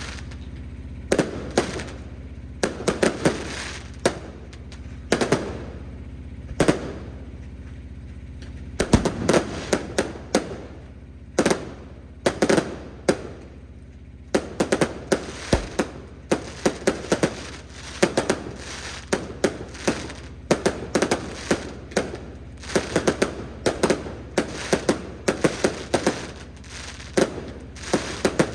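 Fireworks going off: sharp bangs and crackling reports in irregular clusters. After a short lull about a third of the way in, they become rapid, near-continuous volleys for the second half.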